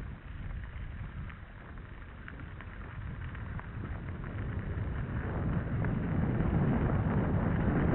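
Wind buffeting a bike-mounted camera's microphone over the rumble of mountain bike tyres rolling on a gravel forest road, with a few faint rattling ticks. The noise grows steadily louder from about halfway through as the bike picks up speed.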